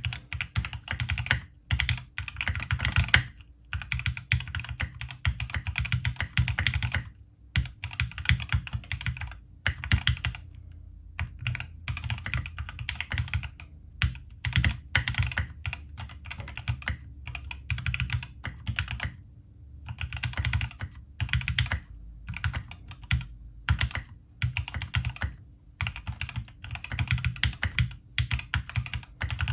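Typing sound test on a freshly built Bakeneko 65 mechanical keyboard with factory-lubed Gateron Oil King linear switches: quick runs of keystrokes in bursts of a second or two, broken by short pauses.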